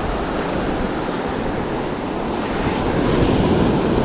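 Small surf breaking and washing up a sand beach, a steady rushing wash that swells louder about three seconds in, with wind buffeting the microphone.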